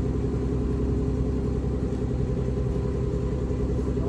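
Steady low drone of a fishing boat's engine running, unchanging throughout.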